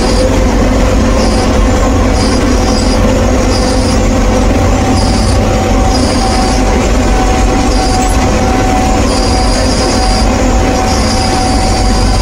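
Bizon combine harvester travelling, its engine and machinery running steadily and loudly as heard from inside the cab, with a high squeal that keeps coming and going about once a second.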